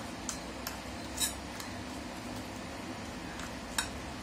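A spoon clinking and scraping against a stainless steel bowl while stirring a thick spice paste. The clicks are scattered and irregular, the loudest about a second in and another sharp one near the end.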